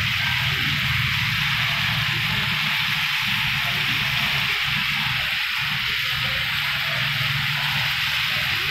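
Sauce sizzling in a hot pan on a gas stove: a steady, even hiss, with a low rumble underneath.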